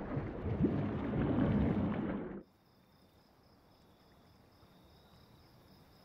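Muffled underwater rumbling and bubbling with low gliding moans, cutting off abruptly about two and a half seconds in. What remains is a faint, still night-time lakeside ambience with a thin steady high trill of insects.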